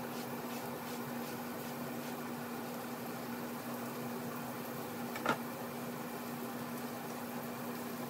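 Beef roast searing in oil in a cast-iron skillet: a steady sizzle over a low steady hum. One sharp clack about five seconds in as a chef's knife is set down on a plastic cutting board.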